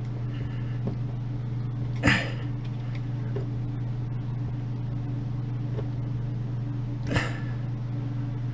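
A steady low hum, with two short hissy puffs, about two seconds in and again about seven seconds in.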